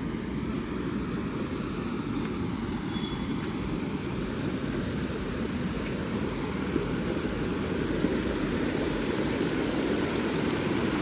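A rocky mountain stream rushing over boulders: a steady rush of water that grows slightly louder toward the end.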